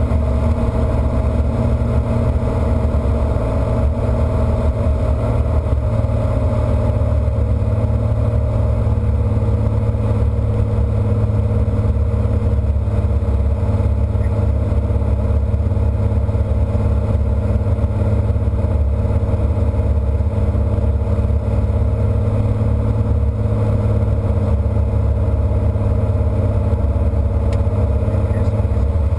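Single-engine propeller light aircraft in flight, its engine and propeller droning steadily, heard from inside the cockpit. The tone shifts slightly about six seconds in.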